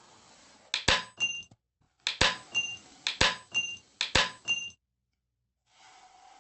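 Four sharp double knocks about a second apart, each followed by a brief high ring like a clink. Faint hiss comes before and after, and the sound cuts to dead silence twice.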